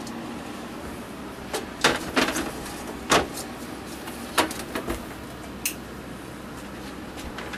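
A series of short, sharp knocks and clicks, about eight of them from about a second and a half in to nearly six seconds in, over a steady background hiss.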